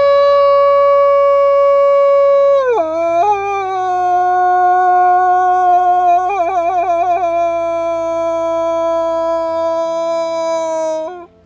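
A person howling into a tube wolf call, imitating a young she-wolf to draw wolves. It is one long, drawn-out howl: a high held note that drops lower about three seconds in, wavers briefly around six to seven seconds, holds steady, and falls away near the end.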